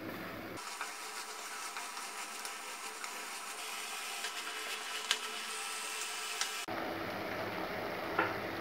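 Faint steady sizzle of chicken pieces frying in oil in a steel kadai, with a few light clicks, the sharpest about five seconds in.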